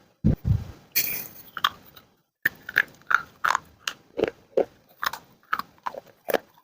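Person chewing crunchy baked clay close to the microphone: a few dull bites, then a steady run of crunches about three a second, with a brief silent gap about two seconds in.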